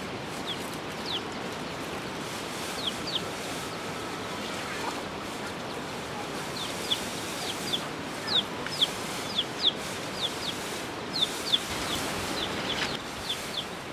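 Chicks peeping: short, high chirps that fall in pitch, a few at first, then many in quick runs from about halfway on, over a steady background hiss.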